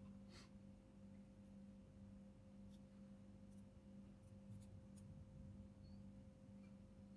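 Near silence: a low steady hum with a few faint, scattered clicks of small tools and parts being handled.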